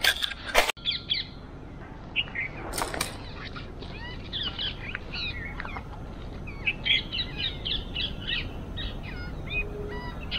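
Footsteps crunching on dry fallen leaves, which cut off suddenly. Then many small birds chirp in short, high, overlapping calls, with a brief rustle about three seconds in.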